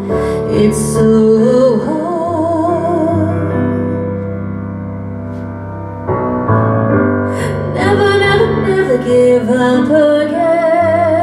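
A woman singing a sustained melody with vibrato over sustained piano chords.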